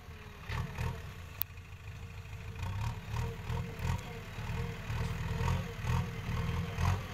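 Diesel engine of a JCB 3DX backhoe loader running, its low rumble swelling and easing, with a single sharp click about a second and a half in.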